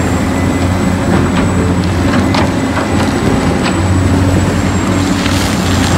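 Large Caterpillar hydraulic excavator's diesel engine running steadily while digging, with a few sharp clanks from the bucket working rocky earth.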